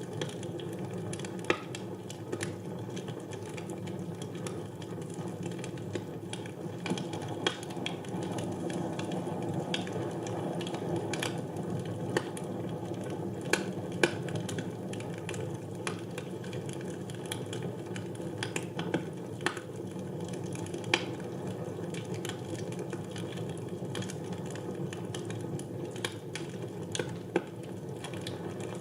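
Fire burning in a fireplace: a steady low rush of flames with irregular sharp crackles and pops scattered throughout.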